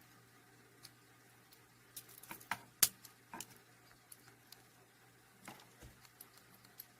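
Small, scattered clicks and taps from a Swiss Army pocket knife being handled. A quick cluster comes about two to three and a half seconds in, holding the loudest click, and a few lighter clicks follow.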